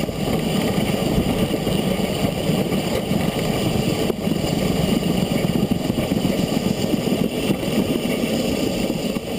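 Narrow-gauge steam locomotive Loch running downhill with power reduced, a steady rumble of the engine and its wheels on the rails.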